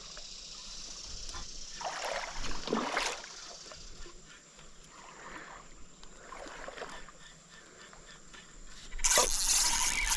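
Water sloshing and splashing around a paddle board while a spotted bass is being landed. A louder rush of splashing and hiss sets in suddenly about nine seconds in.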